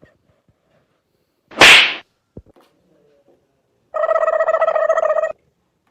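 A sharp swish, like a whip crack, about a second and a half in, then a steady buzzing tone held for about a second and a half near the end: comedy sound effects.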